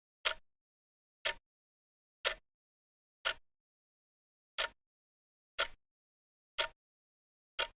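Clock ticking, one short sharp tick each second, counting off the seconds of a countdown timer.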